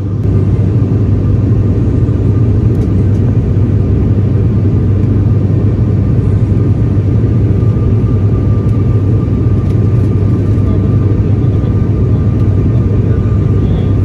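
Steady drone of a turboprop airliner's engines and propellers heard inside the passenger cabin, a deep even rumble with a faint thin whine above it.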